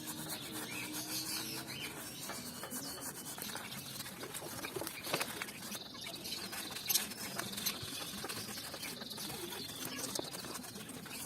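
Brush scrubbing cleaning liquid over a grimy motorcycle engine casing: a steady, scratchy rubbing. Two sharper knocks come about five and seven seconds in.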